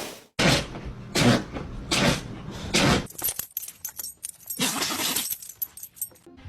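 A dog sneezing repeatedly: four short, sharp sneezes in quick succession, then fainter scattered noises and one longer burst.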